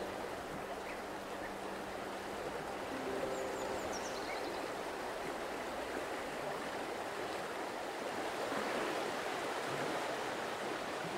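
Steady rushing of a flowing stream, with a brief high descending chirp about three and a half seconds in.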